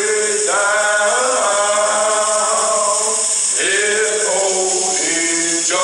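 Men's voices singing a slow gospel song in long, drawn-out phrases, with a new phrase starting about half a second in and another about three and a half seconds in.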